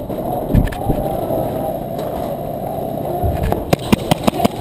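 Steady rustling rumble of a body-worn camera rubbing against clothing, then from about three and a half seconds in a quick, irregular run of sharp clicks and snaps.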